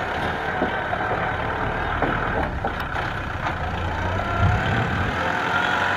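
Kubota M6040SU tractor's diesel engine running steadily as it pulls a loaded rice trailer, with a few faint knocks a couple of seconds in.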